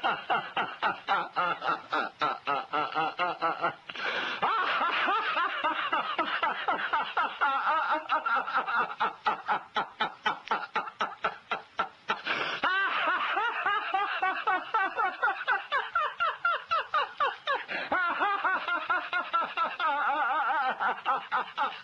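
Sustained laughter: a fast, even run of ha-ha pulses, about four to five a second, with short breaks around four and twelve seconds in.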